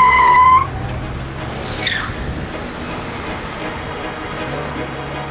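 A car horn blares for about half a second and cuts off, over a car engine running with a steady low rumble. Around two seconds in there is a brief high sound falling in pitch.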